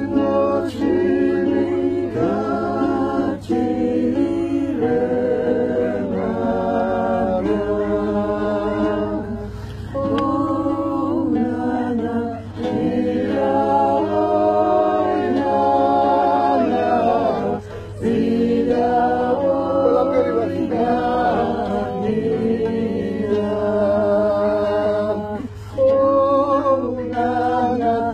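Several voices singing a Georgian folk song together in harmony, unaccompanied, in phrases broken by short pauses for breath.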